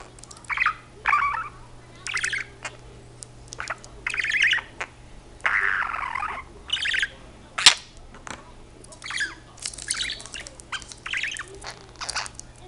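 A budgerigar chattering and chirping in short bursts throughout, with one sharp click, the loudest sound, a little past halfway.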